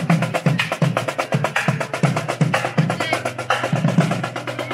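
Marching drum corps playing a fast cadence on snare and bass drums, in quick, evenly spaced strokes.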